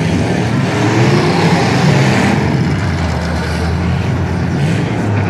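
Engines of several demolition-derby pickup trucks running hard and revving as the trucks push against each other. The noise is loud and steady, with a swell about two seconds in.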